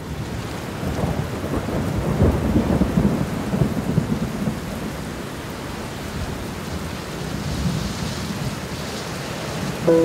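Heavy rain pouring steadily, with a low rumble of thunder that swells about one to four seconds in.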